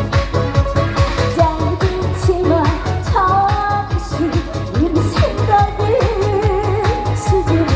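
A female gugak-style singer singing live over backing music with a steady drum beat. Her voice holds long notes with wavering ornaments and slides between them.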